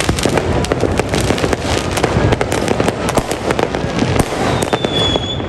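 Fireworks going off in a dense, unbroken barrage of overlapping bangs and crackles. A short whistle sounds about four seconds in.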